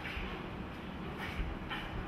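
A boxer shadowboxing on a ring canvas: short sharp hissing breaths a few times and shuffling footwork, over a steady rumbling background noise.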